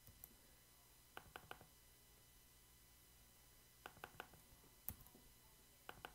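Faint computer clicks in quick runs of three, three times, from mouse and keyboard use while text is selected and pasted, over near silence.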